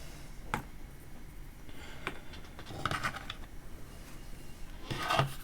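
Small plastic and metal parts of a wire-feed soldering iron being handled during disassembly: a few scattered light clicks and small rattles, with a cluster about three seconds in and more near the end.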